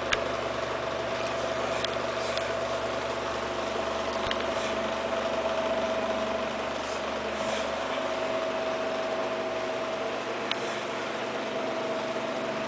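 A steady machine hum holding one constant pitched tone over a noise haze, with a few faint clicks.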